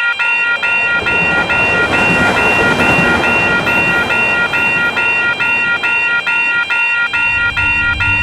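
Japanese railroad crossing warning bell ringing 'kan-kan' steadily at about three dings a second. A rushing noise swells from about a second in and fades out toward the end, and a low hum comes in near the end.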